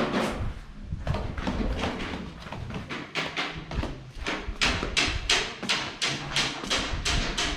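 Background music with a fast, steady percussive beat of about four strokes a second over a low sustained bass.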